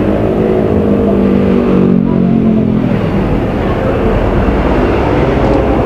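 A motor vehicle's engine running, a steady hum over road noise that grows stronger about a second and a half in and eases off after about three seconds.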